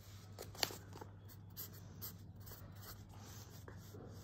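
Pen scratching on paper on a clipboard as a small drawing is sketched, faint, with one sharp tap about half a second in.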